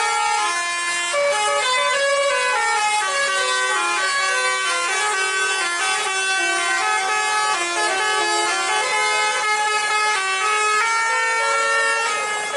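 Basuri, a multi-tone bus air horn, playing a melody: a continuous run of held notes stepping up and down, several sounding together.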